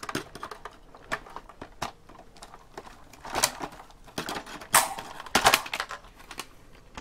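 Irregular sharp clicks and snaps of side cutters cutting wires inside a robotic vacuum cleaner, with the plastic shell clattering as it is handled. The loudest snaps come a little past the middle.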